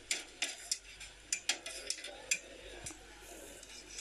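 Metal knife and utensils clicking and tapping irregularly, a few sharp clicks a second, as shawarma is sliced from a vertical spit over a metal counter.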